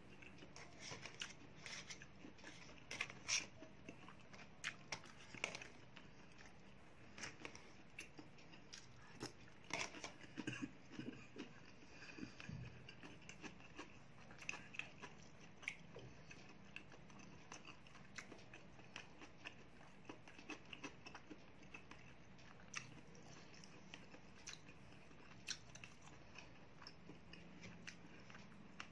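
Faint eating sounds: chewing, with scattered small clicks and scrapes of a fork picking food from a plastic takeaway tray.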